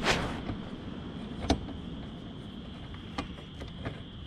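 Handling noise from a metal motorcycle crash bar and its mounting hardware being worked into place by hand: a brushing rustle at the start, one sharper click about a second and a half in, and a few light clicks and knocks after.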